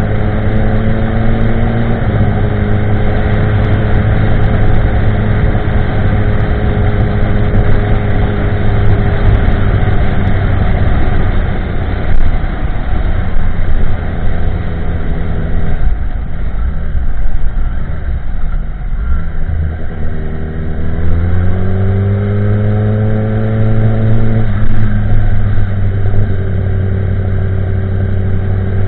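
2016 Kawasaki ZX-10R's inline-four running through a de-catted Pro Race GP-R2 carbon exhaust while cruising, over a constant rush of wind. About halfway through the engine note fades away off the throttle. It then rises under acceleration, drops suddenly at a gear change, and settles back into a steady cruise.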